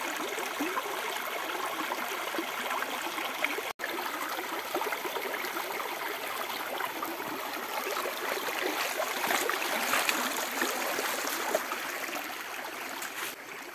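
Shallow forest stream running over rocks, a steady rushing sound of water that cuts out for an instant about four seconds in.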